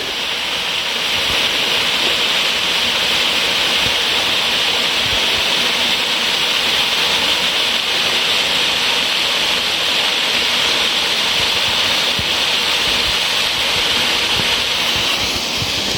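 Steady rush of fast-flowing stream water, an even hiss.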